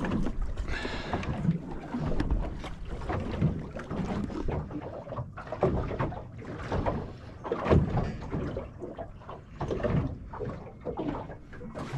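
Small boat drifting with its motor off, water lapping and slapping irregularly against the hull.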